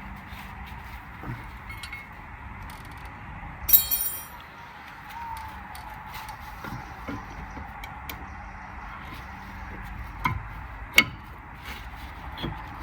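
Metal parts and tools clinking and knocking as a front brake caliper is fitted back over new brake pads. A ringing metallic clink comes about four seconds in, and two sharp knocks come near the end.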